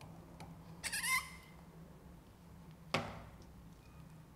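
Hand snap pliers pressing a plastic snap together through fabric: a short squeak about a second in, then one sharp click about three seconds in as the snap seats or the pliers release.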